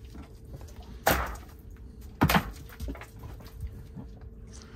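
Knocks and thuds of heavy fish being handled into a cooler: two sharper knocks about a second apart, then a few lighter ones, over a faint steady hum.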